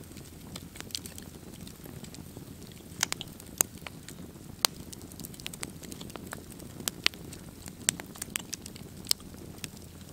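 Log campfire crackling, with irregular sharp pops over a low, steady rush of burning.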